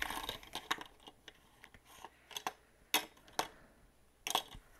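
Paper dollar bills being handled as a stack, giving short crisp rustles and crackles about half a dozen times.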